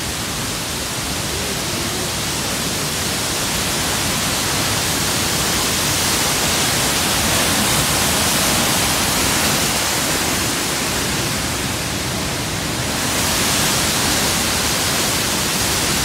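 Waterfall falling into a churning plunge pool: a loud, steady rush of water.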